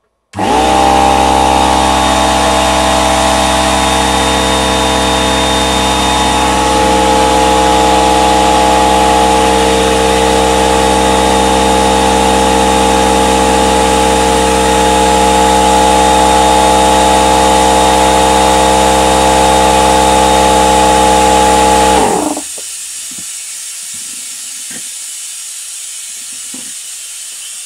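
Belt-driven SIP 06236 air compressor starting up and running loud and steady on a test run with a freshly fitted belt. About 22 seconds in it cuts out abruptly, leaving a steady hiss of air.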